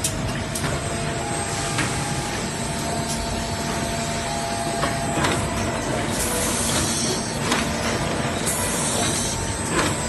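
ZK-660D puzzle box making machine running: a steady mechanical din with a few sharp clacks at uneven intervals and brief hisses of air.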